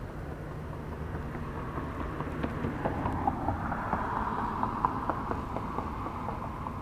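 Wind rumbling on the microphone, with a quick run of light ticking and whirring from about two seconds in, from a spinning reel being cranked to bring in a fish.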